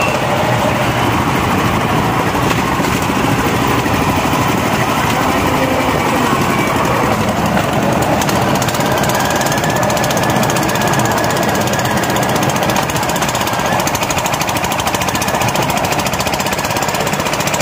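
Engine of a passenger vehicle running steadily with a fast, hammering beat, heard from inside the covered passenger compartment.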